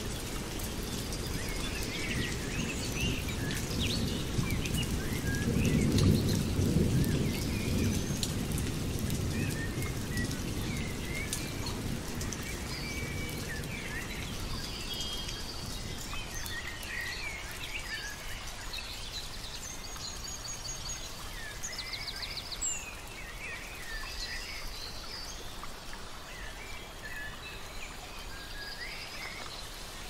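Many birds chirping and trilling over a steady hiss of rain. A low rumble swells about five seconds in and dies away a few seconds later.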